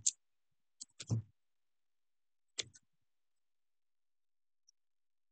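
Computer keyboard keys tapped a few times: about five short, separate clicks spread over the first three seconds.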